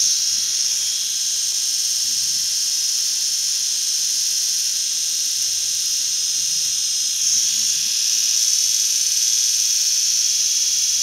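Small battery-powered eyebrow trimmer (sold as an electric epilator) running with a steady high-pitched whine while it is worked along the eyebrow.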